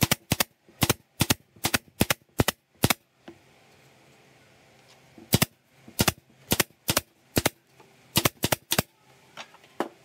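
Pneumatic nail gun firing nails through pine cleats into pallet boards: sharp shots about two a second, a run of about eight, a pause of about two seconds, then another run of about eight.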